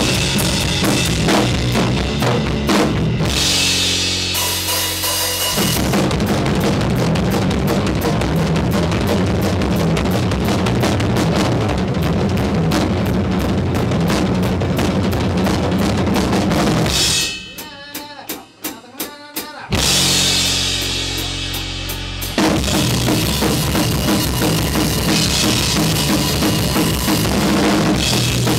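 A punk rock rhythm section, drum kit and bass guitar, playing a fast song in rehearsal. Driving drums with bass drum, snare and cymbals, broken twice by a held note with cymbal wash, about four and about twenty seconds in. About seventeen seconds in the band nearly stops for a couple of seconds, with a few scattered hits, before coming back in.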